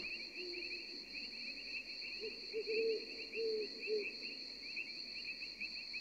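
Crickets chirring in a steady, continuous high trill, as night-forest ambience, with a few faint low calls in the middle.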